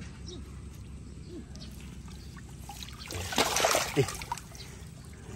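Shallow pond water splashing and sloshing as a hand pushes through floating water lettuce, with a loud burst about three seconds in, over a faint steady trickle.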